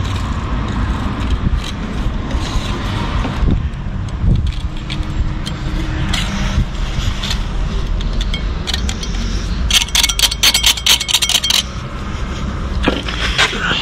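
Metal scraper blade scraping excess glue off the face of a brick along a freshly glued crack, in short strokes with a quick run of rapid scrapes about ten seconds in, over a low steady rumble.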